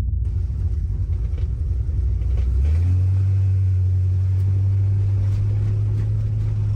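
1967 Pontiac Firebird's 400 cubic inch V8 running on the move with a low rumble; about two and a half seconds in, the engine note steps up to a higher pitch and holds steady, a little louder, as the throttle is opened.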